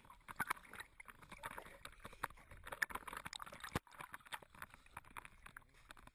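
Sea water splashing and lapping at an action camera held at the surface, with many small sharp splashes as a dog paddles up close to it.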